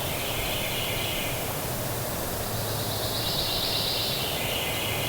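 Outdoor ambience on a windy morning: a steady rush of wind with a high, hissing chorus that swells and fades in two waves.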